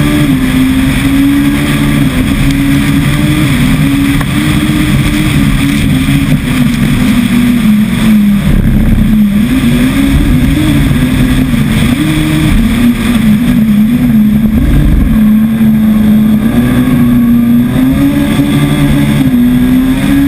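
Rallycross car engine heard from an onboard camera, running hard and loud at high revs, its pitch rising and falling again and again through gear changes and corners, over a steady wash of wind and road noise.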